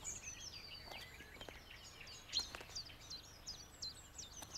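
Small songbirds singing faintly, a busy run of quick, high chirps and twittering notes, with a few soft clicks, the clearest about halfway through.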